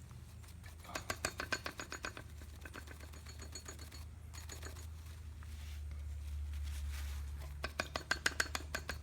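Quick runs of sharp, ringing ticks, about a second in and again near the end, from silicone grease being worked by hand over the metal backing plate of a brake pad, over a low steady hum.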